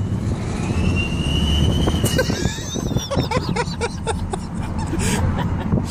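Aftermarket exhaust 'turbo whistle' on a 2014 Ford Focus whistling under acceleration over the car's engine and road noise. A high tone rises about half a second in and holds, then around two seconds in it breaks up into shorter, higher chirps and glides.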